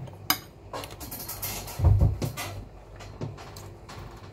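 Close-up eating sounds from boiled beef (nilaga) eaten off the bone: chewing and lip smacking with scattered clicks, and a louder low thump about two seconds in, over a steady low hum.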